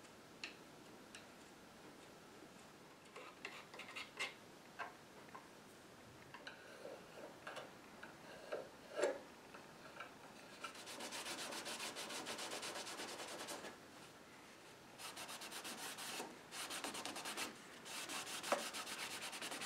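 A small brush scrubbing stain into a wooden molding, then a cloth wiping it: stretches of quick, faint, scratchy rubbing strokes starting about halfway in. A few light clicks come before them.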